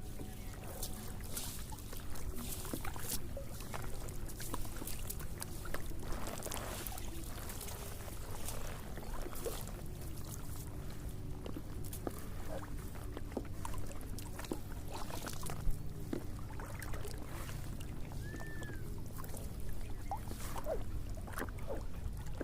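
Water splashing and dripping, with irregular small knocks, as a fishing net is handled in the water to pull out a caught fish.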